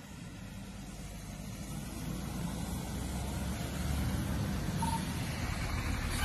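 Fire engine's engine rumble and tyres hissing on wet pavement, growing steadily louder as it approaches and passes close by.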